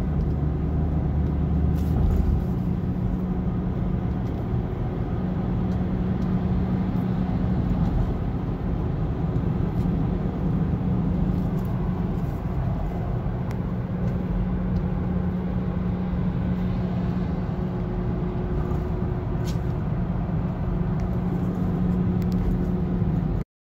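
Steady road and engine noise heard from inside a car's cabin while cruising on an expressway, with a low drone throughout. It cuts off abruptly near the end.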